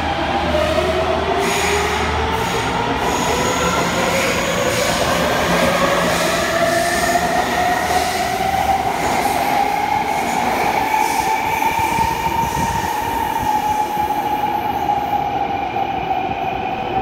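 Taipei Metro Bannan line train pulling out of the station. Its electric traction motors whine, rising steadily in pitch as it speeds up over the first twelve seconds or so, then levelling off, over steady wheel-and-rail running noise.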